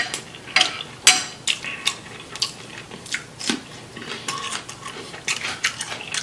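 Eating sounds: a fork clinking against a ceramic dish, and crunchy chewing of Persian cucumber. They come as a string of sharp, irregular clicks and crunches.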